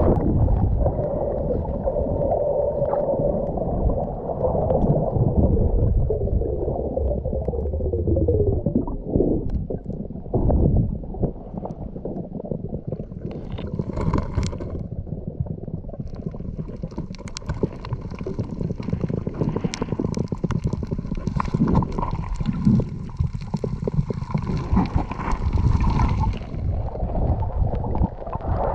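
Underwater sound picked up by an action camera: a muffled rumble of moving water and bubbles after a diver's entry. A dense crackle of small clicks comes in for a spell through the middle.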